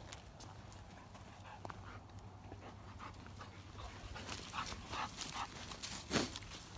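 A dog sniffing at the ground in short, quick snuffles that come thicker and louder about four seconds in, with one louder burst near the end, over faint crackling.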